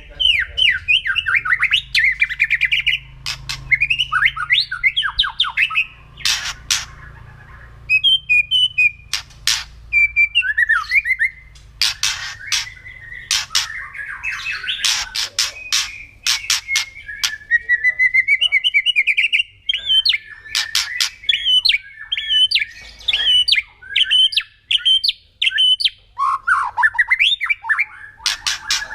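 White-rumped shama (murai batu) calling: fast warbled phrases broken by many sharp, clicking rattles, the harsh 'kretekan' call of an agitated bird.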